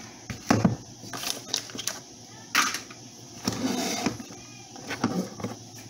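Kitchen handling noises: a scattered series of knocks and clicks as a glass bottle and cookware are moved and set down on the counter and stove.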